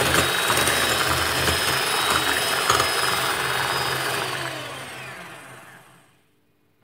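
Electric hand mixer running, its twin beaters whisking eggs, sugar and butter into a creamy batter in a glass bowl; the motor hum and whirring die away with falling pitch near the end.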